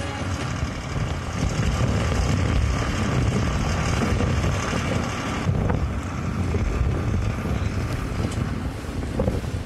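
Wind buffeting the microphone, a steady rough rumbling noise heaviest in the low range. About five and a half seconds in, the higher hiss drops away abruptly.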